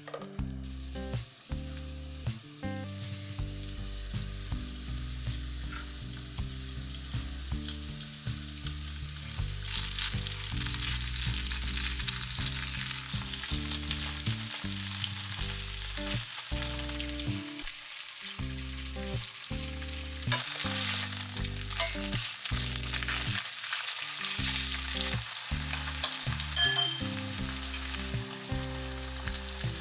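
Pork loin steaks sizzling in a frying pan with steady crackling spatter that grows louder about a third of the way through.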